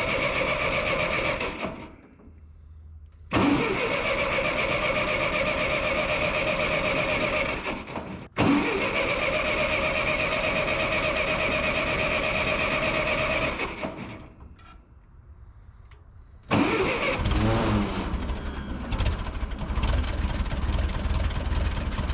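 A tractor's starter motor cranking the engine in three long attempts with pauses between, whining steadily without the engine catching; about 16 seconds in the engine fires and keeps running with a low rumble.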